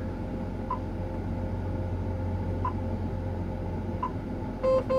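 Steady running hum of a John Deere 8800i forage harvester at work, heard from inside its cab, with a faint short pip every couple of seconds. Near the end comes a quick run of electronic warning beeps.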